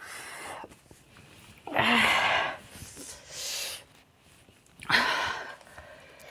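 A woman breathing hard through her mouth against the burn of a very hot chilli chip. Two loud, breathy 'haah' blasts come about two seconds in and again about five seconds in, with a hissing breath between them.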